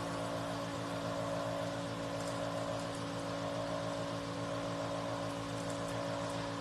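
Hydrodermabrasion facial machine's vacuum pump running with a steady hum of several held tones, powering the suction handpiece.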